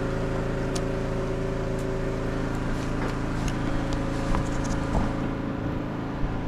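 Portable generator's small engine running steadily, with a few light clicks and knocks from handling the equipment.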